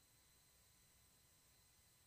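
Near silence: only a faint, steady recording hiss.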